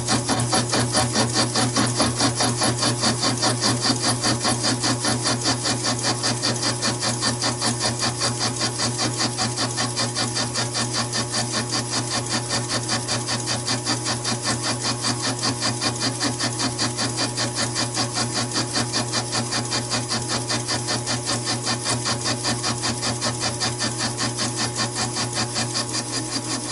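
Taig lathe turning a chuck adapter at low speed while the cutting tool takes a light cut, making a fast, even, repeated scraping over the steady hum of the motor.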